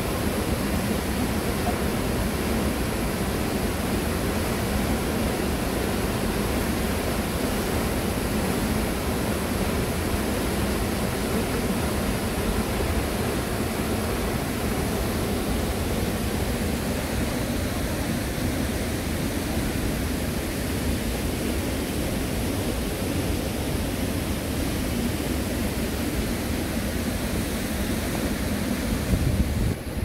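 Cheonjiyeon Falls pouring into its plunge pool: a steady, dense rush of falling water. A brief low thump comes near the end.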